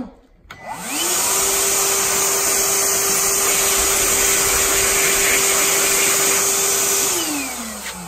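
Ryobi 18V One+ cordless shop vacuum running in blower mode, with the hose on the exhaust port and a small nozzle fitted. The motor spins up in the first second and runs with a steady whine and a rush of air. Near the end it is switched off and winds down in falling pitch.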